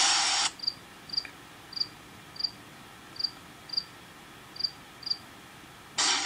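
A brief loud burst of hiss, then a cricket sound effect: eight short high chirps spaced about half a second apart. Guitar music starts just before the end.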